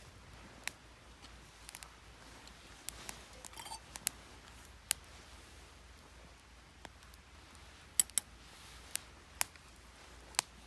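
Wood fire crackling: about a dozen sharp, irregularly spaced pops, some close together in pairs, over a faint background.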